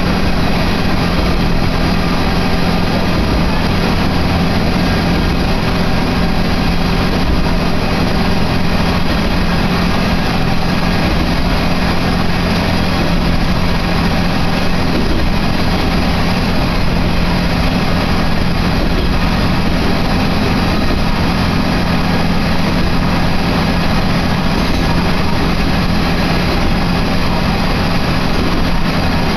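Diesel railcar running along the line, heard from inside the passenger cabin: a steady, loud engine drone with a strong low hum and rolling noise under it.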